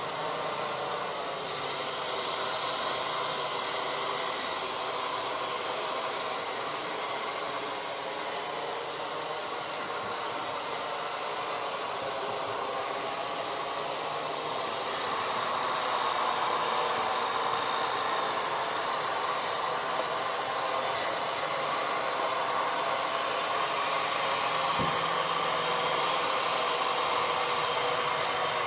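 Electric plant-cutting machine's motor running continuously with a steady whine and rush, cutting to shape a small hedge. It gets slightly louder about halfway through.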